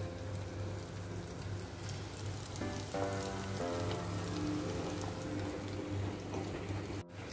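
Hot oil sizzling and crackling steadily as flour-coated meat pieces deep-fry in a pot. The sound cuts out for a moment near the end.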